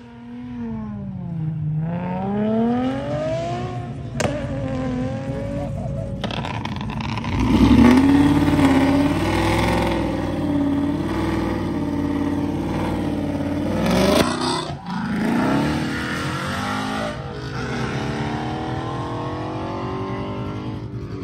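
Cars doing burnouts and donuts. For the first few seconds an engine's revs sweep down and up. Then, from about seven seconds in, a louder engine is held at high revs with the rear tyres spinning, with a sharp rev about two-thirds of the way through and more revving near the end.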